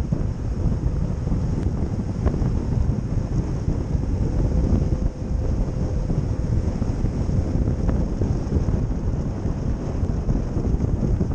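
Steady low rumble of wind buffeting the microphone, rising and falling in small gusts.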